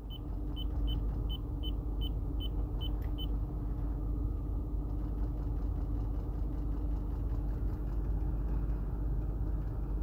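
Rapid run of about ten short electronic beeps from a Lexus touchscreen climate control as the temperature setting is stepped up. They sit over the steady hum of the running climate system, with a faint rapid clicking from under the dash that the owner puts down to a climate-control servo motor failing to fully close a blend door.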